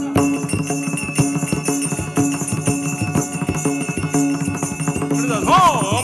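Music accompanying a Karnataka leather shadow-puppet play: a steady drone under rapid jingling bells and dense percussion strokes. Near the end a voice comes in with a wavering, swooping sung note.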